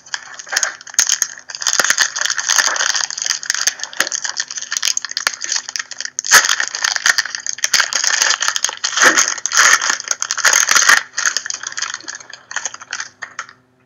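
Foil trading-card pack wrapper being torn open and crumpled by hand: dense crinkling full of sharp crackles, thinning out about 11 seconds in.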